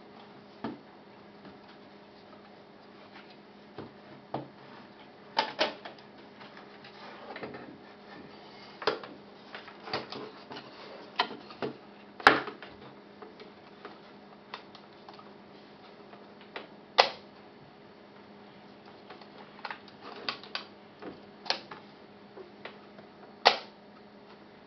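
Polaroid 320 pack-film camera being handled: scattered clicks and knocks of its latches and body parts as the back door is unlatched and swung open. A few sharp snaps stand out, the loudest about twelve seconds in.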